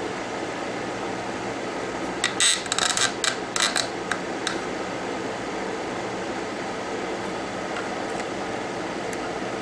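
Metal tweezers and a steel tool clicking and scraping against the iPhone 6 Plus logic board, a quick cluster of sharp clicks about two to four and a half seconds in, over a steady fan-like hiss of air.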